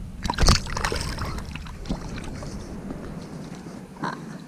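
A carp splashing in shallow water as it is released from the hand and swims off, with one loud splash about half a second in. Wind rumbles on the microphone and eases near the end.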